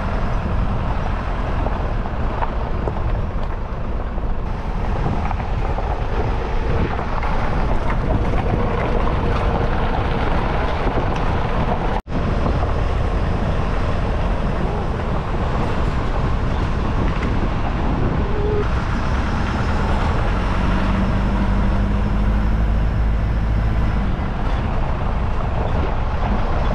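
Car driving along a dirt road, heard from outside the vehicle: steady engine and tyre noise with heavy low rumble from wind on the microphone. The sound cuts out for an instant about twelve seconds in.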